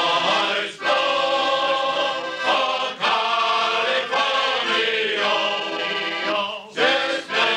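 Men's choir singing together in sustained phrases, with short breaks between them.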